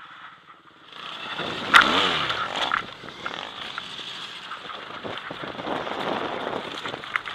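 Motorcycle engine, the BMW F800GS's 798 cc parallel twin, starting about a second in and revved up and down hard around two seconds in, with a couple of sharp knocks. It then runs steadily under throttle as the bike pulls away on dirt.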